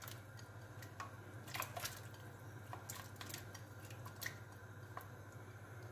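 Cubed raw potatoes pushed by hand off a plate, dropping into a pot of borscht broth with soft, scattered plops and small splashes.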